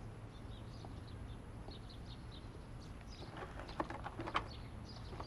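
Quiet ambience with faint, scattered bird chirps, and a few soft knocks and rustles about three and a half to four and a half seconds in, as items are handled in a car's boot.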